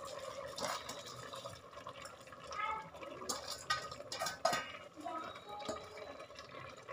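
Soaked basmati rice and its soaking water sliding and pouring from a steel bowl into a steel pressure cooker of wet masala, with a few light clinks of the bowl against the cooker.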